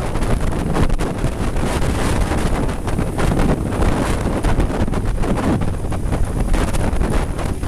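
Wind buffeting the microphone of a camera on a moving Suzuki B-King, with the motorcycle's inline-four engine running underneath at steady cruising speed.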